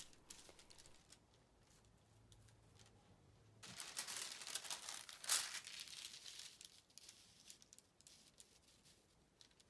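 Faint rustling and crinkling of paper pattern sheets being handled and laid flat on a table. The loudest rustle comes about four to six seconds in.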